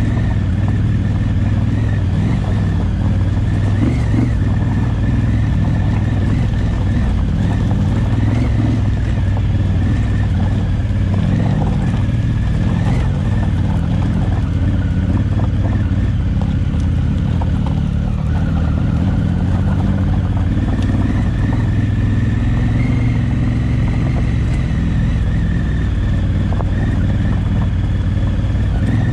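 Twin-cylinder adventure motorcycle engine running at a steady pace, heard onboard as a constant low rumble with a thin steady whine above it and no revving.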